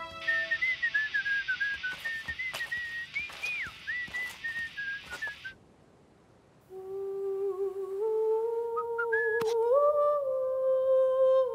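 A whistled tune wavers over a scratchy hiss for about five and a half seconds and then stops. After a short silence, a voice starts humming a gentle, stepping melody.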